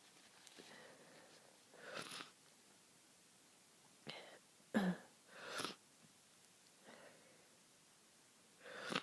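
A person with a stuffy head cold sniffling at intervals, with one sudden sneeze about five seconds in, the loudest sound. Just before it comes a short breath, and another sniff follows it.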